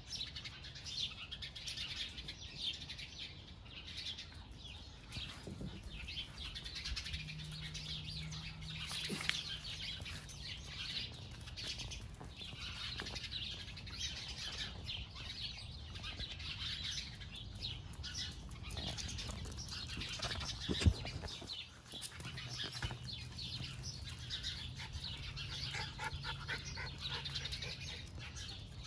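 Small birds chirping and twittering continuously in a dense chorus, with a faint low steady hum in two stretches and a single sharp click about two-thirds of the way through.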